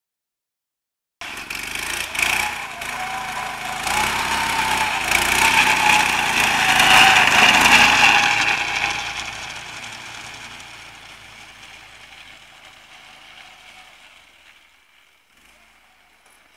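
Small engine of a homemade snowmobile running as it drives past, starting suddenly about a second in, growing louder to a peak about seven seconds in, then fading as it moves away.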